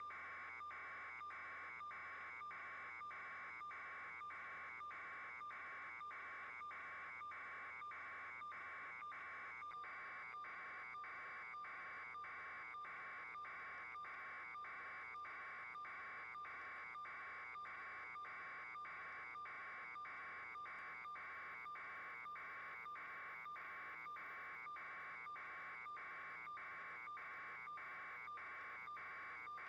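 A steady electronic buzzing tone pulsing evenly, just under twice a second.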